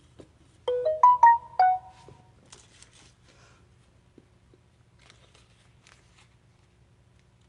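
A phone's electronic alert tone: a quick jingle of five bright notes lasting about a second, starting under a second in, followed by faint clicks and rustling.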